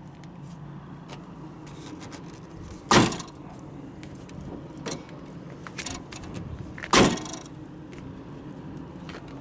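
A Dodge Ram pickup's heavy hood slammed shut twice, about four seconds apart, with a few light knocks between. The hood is being forced down onto a latch that is reluctant to catch, and the second slam latches it.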